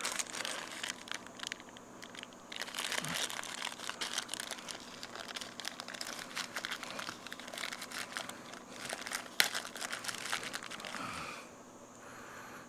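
Rustling, crinkling and small clicks of hands handling the parts and plastic of a thread repair kit, with one sharp click about nine seconds in, quieter near the end.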